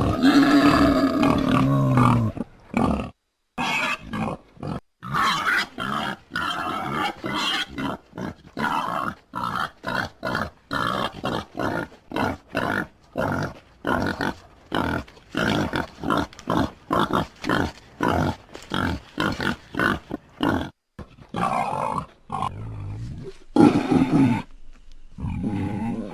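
Wild boar grunting in a rapid run of short grunts, about two to three a second, with longer pitched calls near the start and again near the end.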